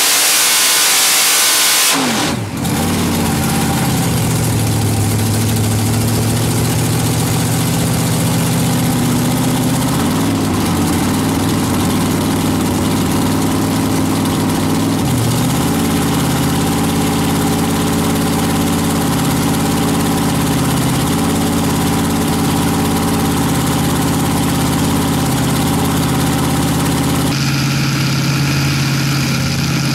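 Supercharged Hemi engine of a drag-racing Valiant, revving hard at the end of a burnout, then dropping about two seconds in to a steady, lumpy idle. It stays at idle for the rest of the time, with a couple of slight rises in revs around ten and fifteen seconds.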